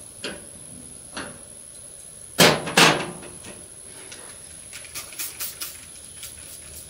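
Two loud sharp knocks a couple of seconds in, then a quick run of spray-bottle trigger pumps, about four a second, spraying the brass service-valve caps of a mini-split outdoor unit to check them for leaks.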